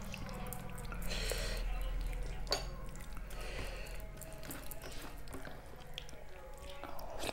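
Fingers mixing soft, starchy rice with mashed vegetables on a steel plate: wet squishing with many small clicks of hand and rings against the steel, and one sharper click about two and a half seconds in.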